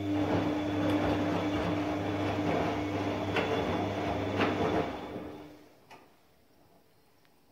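Bosch WAS20761TR front-loading washing machine in its water-cooling step: a steady low motor hum with laundry sloshing through water in the turning drum. The sound dies away about five and a half seconds in, followed by a single click.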